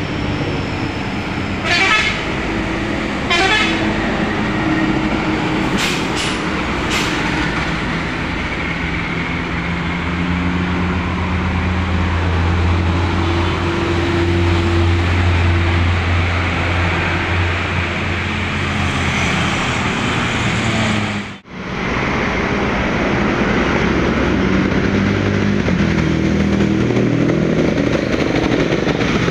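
Road traffic with large diesel buses passing close by: a steady low engine drone swells through the middle as a bus goes past, with two short horn toots a few seconds in. The sound drops out for an instant about two-thirds of the way through, at a cut, before another vehicle's engine comes up.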